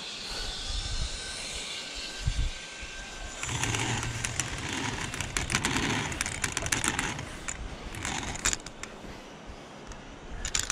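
Zipline trolley running along a steel cable: a rolling whir that grows into a louder rushing noise about three seconds in, with scattered clicks and rattles from the metal hardware.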